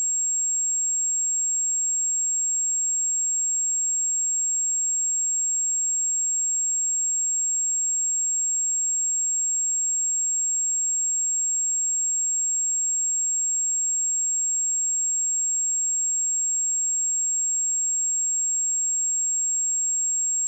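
A pure 7553 Hz sine-wave test tone, a single high-pitched steady tone held at a constant level.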